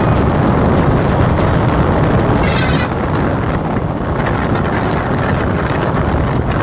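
Motorcycle riding noise: the engine running and wind rushing over the microphone. About two and a half seconds in, a brief high, wavering pitched sound cuts through.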